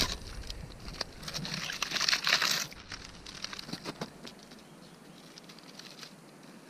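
Dry birch bark crinkling and tearing as it is peeled by hand off a birch trunk, cutting off suddenly about three seconds in; then faint scattered clicks and rustles of birch bark and wood shavings being laid into a fire pit.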